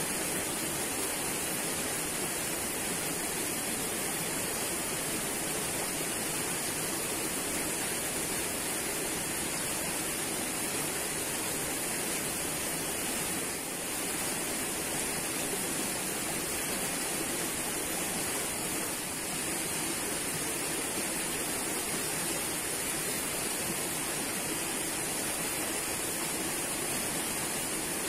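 Steady rushing of flowing water from a small muddy stream, an even noise with no breaks.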